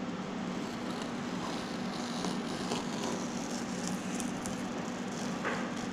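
Masking tape being slowly peeled off a freshly painted pinstripe on a car's fender, faint light crackles over a steady low background hum.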